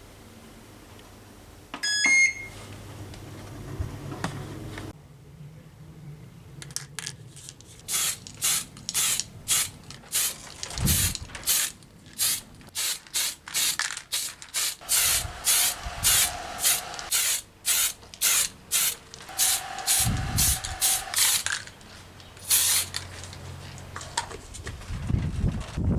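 A single ringing metallic clink, then a long run of short hissing strokes, about two a second.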